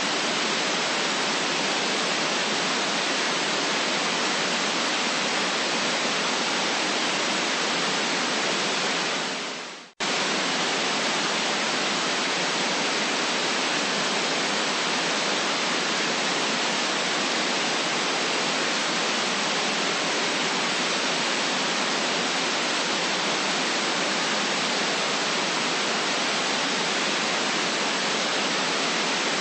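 Steady hiss of static noise, even across the range with little bass. About ten seconds in it fades out quickly to near silence and then cuts straight back in at full level.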